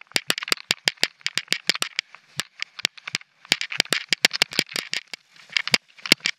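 Mountain bike rattling over rough, rocky singletrack: an irregular run of sharp clicks and knocks, several a second, from the bike and its camera mount jolting over rock, over a steady hiss of tyres on dirt and gravel.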